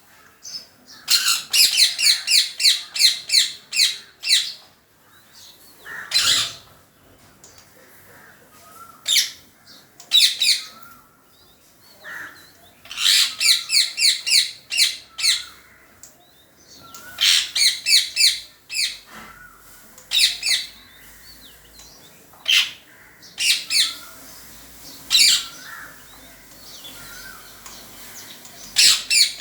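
Parrot squawking in bouts of rapid repeated high calls, about four a second, each bout lasting two to four seconds. Single sharp squawks fall between the bouts.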